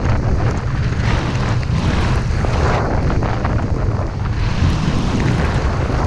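Loud wind buffeting a GoPro microphone with the hiss of a snowboard sliding through deep powder, the hiss swelling and easing every second or so.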